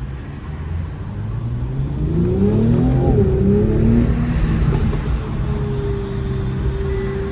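Mercedes-AMG E43's twin-turbo V6 accelerating: the pitch rises, drops with an upshift about three seconds in, rises again, then holds steady.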